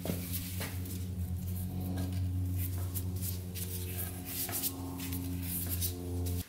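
Metal tools clicking and scraping inside an open two-stroke crankcase while pieces of a broken piston are picked out, with scattered sharp clinks over a steady low hum.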